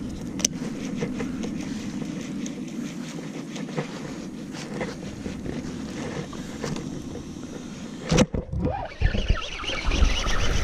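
Baitcasting reel being cranked to retrieve a topwater frog, heard as a steady low rumble with faint ticks over the chest-mounted camera's microphone. About eight seconds in comes a sharp knock, then a run of heavy thumps and rod handling as a fish strikes.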